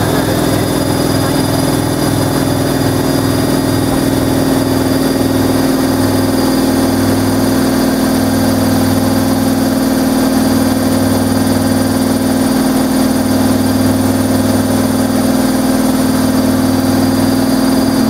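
Hoover Logic washing machine spinning, its motor and drum giving a steady whirring hum. Underneath runs a low throb that pulses a few times a second at first and slows to long swells later.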